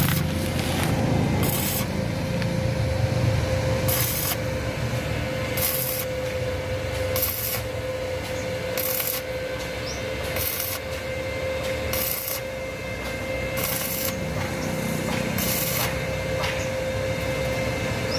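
Slow, regular rasping strokes of a hand tool, about one every one and a half seconds, over a steady mechanical hum with a fixed tone.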